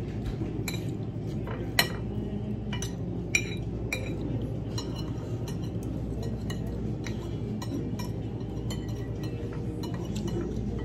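Metal fork and spoon clinking against ceramic plates and bowls while eating: scattered light clinks, the sharpest about two seconds in, over a steady low background hum.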